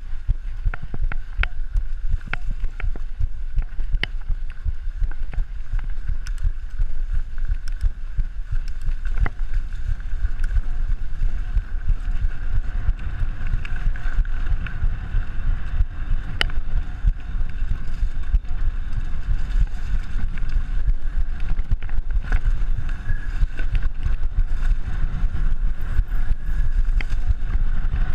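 Mountain bike riding fast over a bumpy dirt trail: wind buffeting the camera microphone and tyre rumble, with frequent sharp clicks and rattles from the bike jolting over bumps.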